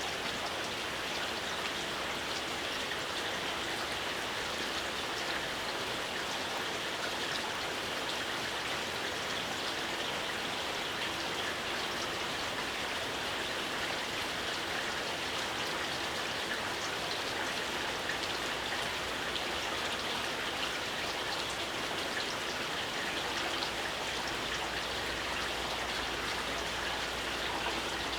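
Steady light rain: an even hiss with many small drops ticking throughout. A faint low rumble joins near the end.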